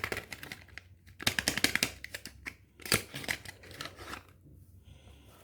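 Close-up crisp crackling and clicking from soap being unpacked or cut, in quick bursts that die away about four seconds in.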